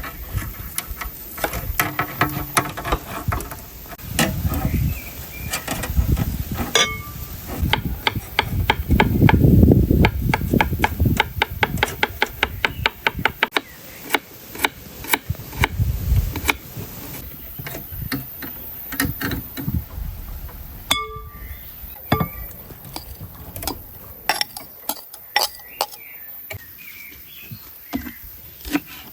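Food-preparation handling noise: knocks, taps and clinks of utensils and cookware, with a quick, even run of taps, several a second, for a few seconds in the middle, and a louder low rumble just before it.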